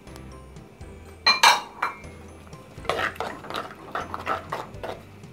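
A spoon scraping and knocking against the sides of a clay cooking pot as a thick tomato curry sauce is stirred, in a run of irregular clinks and scrapes. The loudest knock comes about a second and a half in.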